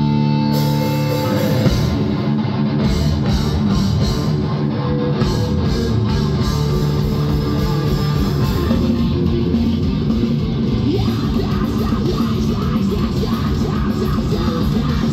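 Live heavy metal band playing with distorted electric guitars, bass guitar and drums. A held chord gives way about a second and a half in to fast, dense playing by the full band with pounding drums.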